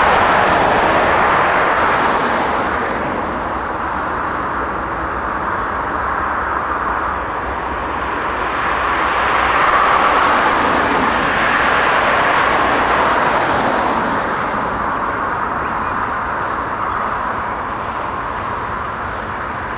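Steam locomotive hauling a passenger train as it approaches, a steady rushing exhaust and running noise that swells about halfway through and eases near the end.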